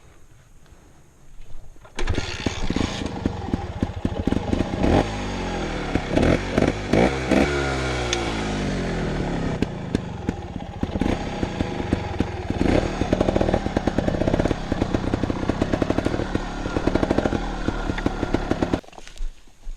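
Montesa Cota 315R trials motorcycle's single-cylinder four-stroke engine comes in suddenly about two seconds in and runs loudly, its pitch rising and falling with the throttle, mixed with sharp knocks and clatter. It stops abruptly near the end.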